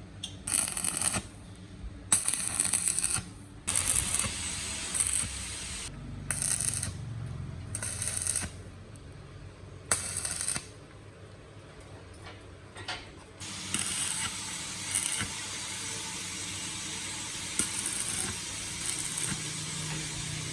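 Metalworking tool noise: a run of short, irregular bursts of about half a second to a second each, then from about 13 seconds in a steadier hiss with a few louder bursts.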